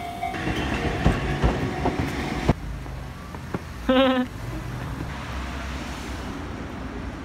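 Enoden (Enoshima Electric Railway) train passing over a level crossing: a loud rumble with several sharp knocks from the wheels, cut off abruptly about two and a half seconds in. After that comes quieter street ambience, with a short high-pitched exclamation about four seconds in.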